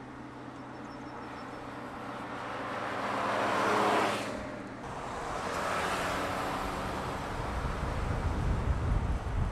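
Smart fortwo driving past on a country road: engine and tyre noise builds to a peak about four seconds in, drops away, swells again, and gives way to a low rumble near the end.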